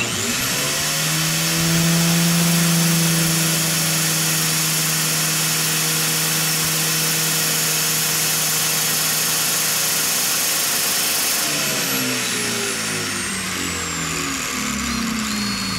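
Angle grinder with a flap disc switched on, spinning up with a fast rising whine, then running steadily while a steel bowfishing arrow tip, spun in a cordless drill, is ground against the disc to a sharp point. About eleven and a half seconds in the grinder is switched off and winds down with a falling whine.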